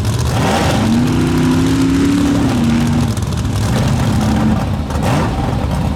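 Monster truck engine revving in surges: the pitch climbs and holds for a couple of seconds, then a shorter burst of revs comes later, over a dense rumble.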